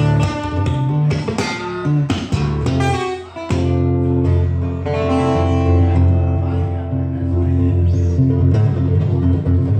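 Live guitar music: chords strummed with quick, sharp strokes for the first three seconds or so, then held, ringing chords over low bass notes.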